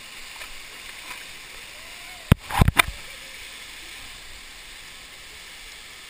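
Waterfall rushing steadily into its pool. A brief cluster of sharp knocks comes about two and a half seconds in.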